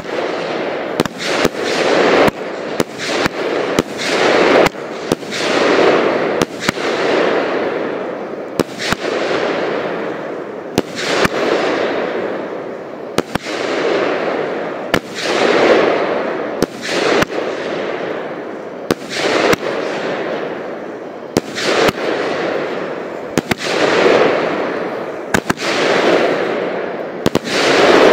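Fireworks battery firing aerial shots in steady succession, about one every one and a half to two seconds. Each is a sharp bang followed by a second or two of rushing, crackling noise that swells and fades as the shell bursts overhead.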